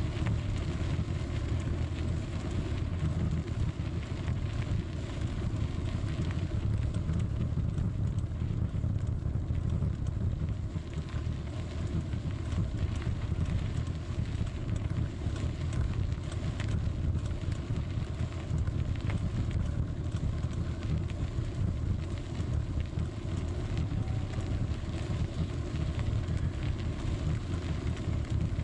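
Steady low rumble of a bicycle rolling along a gravel towpath: wind buffeting the microphone mixed with tyre noise on the packed gravel, with faint small ticks from grit under the wheels.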